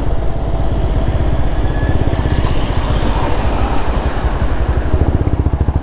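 Motorcycle engine running at low revs under way, with a steady pulsing exhaust beat that grows more distinct near the end.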